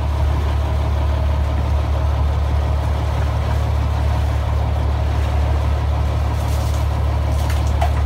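Inboard engine of a wooden fishing boat running steadily under way, a constant low drone.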